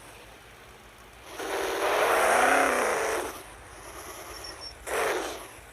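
A vehicle engine that swells and fades over about two seconds, followed by a brief, shorter sound near the end.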